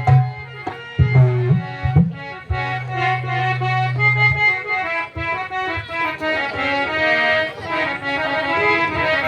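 Harmonium playing an instrumental introduction to a devotional kirtan song, with low drum strokes in the first few seconds.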